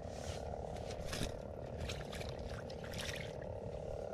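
A steady, even background hiss, with soft light rustling as a caught mullet is handled and put into a small mesh keep net.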